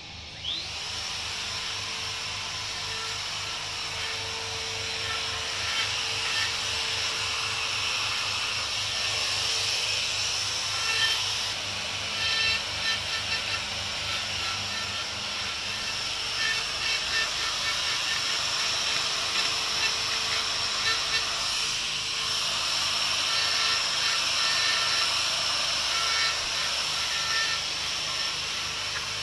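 Handheld electric angle grinder spinning up with a rising whine about half a second in, then running steadily as its disc grinds into a marble bust: a constant whine under a hissing rasp that swells and dips as the disc bites the stone.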